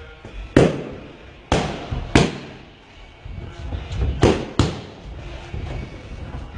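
Boxing gloves smacking into focus mitts during pad work: three sharp echoing slaps in the first couple of seconds, then two more in quick succession a little past four seconds in.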